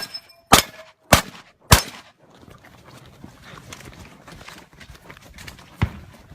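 Shotgun fired rapidly, a shot about every 0.6 s through the first two seconds, with steel targets ringing briefly after the hits. After a pause one more shot comes about six seconds in.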